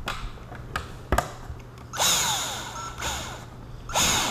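Cordless drill driving the windscreen screws into a motorcycle's fairing in two short bursts about two seconds apart, with a small click about a second in.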